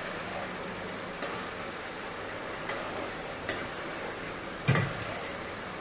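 Egg curry gravy sizzling in a kadai as it is stirred with a spatula, with a few light clicks of the spatula against the pan and one louder knock late on.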